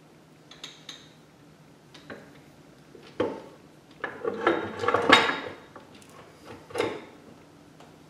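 Steel parts of an NV4500 manual transmission and hand tools clinking and knocking against one another during teardown. A few light taps early on, then a louder run of metallic clatter about four to five and a half seconds in, and one more knock near seven seconds.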